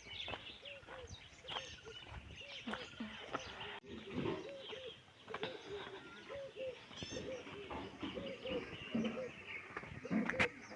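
Birds calling outdoors: many short, repeated calls overlapping, with higher chirps among them.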